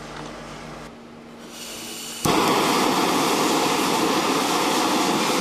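Handheld pistol-grip gas torch lighting about two seconds in, then burning with a loud, steady hiss of flame.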